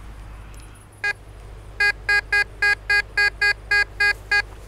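Tesoro De Leon metal detector beeping as its coil passes over a buried metal target: one short beep about a second in, then a quick run of about ten identical beeps, three or four a second, all at the same pitch.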